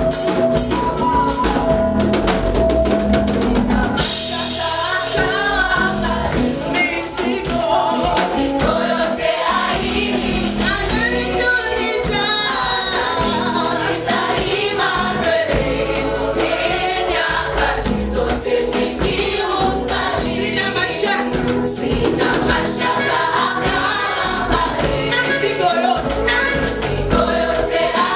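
Gospel praise music from a church singing group backed by drums: an instrumental lead-in gives way to the voices about four seconds in, and the singing carries on over a steady beat.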